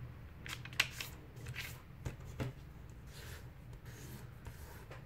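A square of origami paper rustling and crinkling as hands fold it corner to corner and press the crease flat, heard as a scatter of faint crackles.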